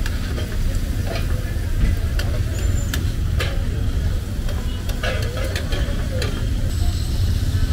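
Metal spatula scraping and clacking on a large flat tawa griddle while liver fries, with sharp strikes at irregular intervals over a light sizzle. A steady low rumble of road traffic runs beneath it and is the loudest sound.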